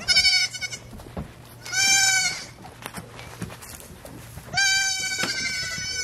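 Goat kid bleating three times in high calls: the first quavering, the second short, the last and longest starting near the end.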